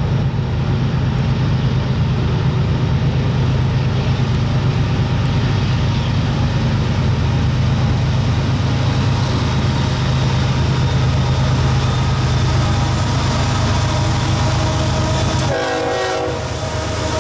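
Diesel locomotives on a long freight train, running loud and steady as they approach and pull past close by. The deep engine drone drops off sharply about sixteen seconds in as the lead units go by.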